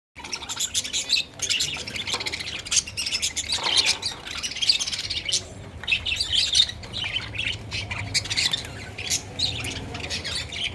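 A group of small birds chirping and squawking, many short high calls overlapping continuously.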